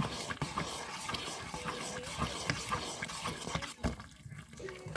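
A spoon stirring moist bread-cube stuffing in a stainless steel mixing bowl: repeated soft, wet thuds as the mixture is turned, with the spoon knocking and scraping against the bowl.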